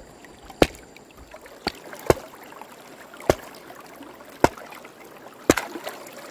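A series of sharp knocks, about one a second and evenly spaced, over a steady wash of background noise.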